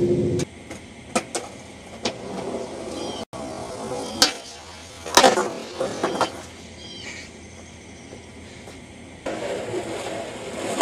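Skateboard rolling on concrete with several sharp clacks of the board popping and slapping down, the loudest about five seconds in.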